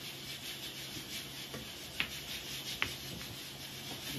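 A pool shot: the cue tip strikes the cue ball with a sharp click about two seconds in, and a second sharp ball click follows under a second later, over a steady background hiss.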